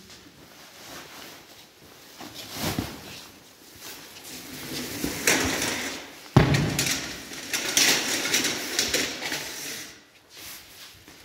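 Irregular rustling and clattering, as of things being handled, with a single sharp knock or slam about six seconds in.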